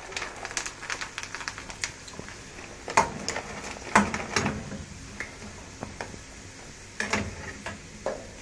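Coloured dried fryums (vathal) deep-frying in hot oil in a brass kadai, crackling and sizzling as they puff up. Several sharper knocks of a metal slotted spoon against the pan as they are stirred.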